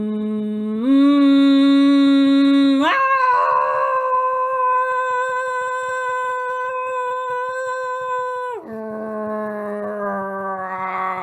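A woman's voice holding one long tone while her fingertips tap steadily on her chest, the tapping faint beneath it. The tone starts low, steps up a little, leaps to a much higher held note about three seconds in, then drops back low near the end and slowly sinks. It is a voice-and-chest-tapping exercise for releasing tension.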